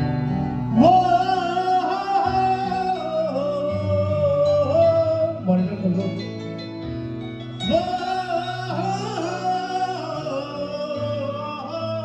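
Male vocalist singing long, wavering held notes into a microphone over sustained keyboard accompaniment in a live Punjabi song. There are two drawn-out phrases, one starting about a second in and another near the end.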